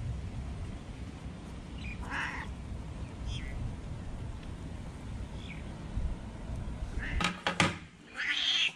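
A steady low rumble with a few short animal calls over it, about two, three and five and a half seconds in. A few sharp clicks follow near the end, then a louder call that the rumble no longer covers.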